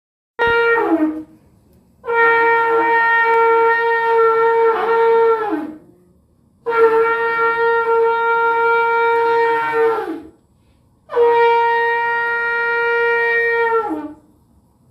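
Shofar blown four times: one short blast, then three long, steady blasts of about three and a half seconds each, every blast ending with the pitch falling away.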